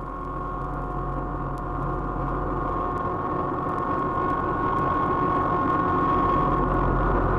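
Electronic science-fiction sound effect from a 1958 sound-effects LP: a steady high whine over a low rumble, slowly growing louder, with faint record-surface clicks.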